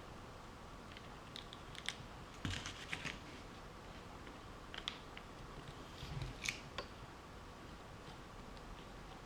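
Scattered light clicks and taps of small tools and parts being handled at a repair bench, in small groups with pauses between, over a faint steady hum.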